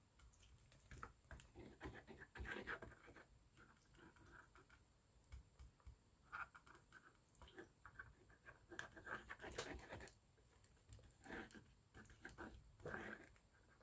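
Faint, irregular rustling and soft handling noises of fabric and paper being smoothed and adjusted by hand.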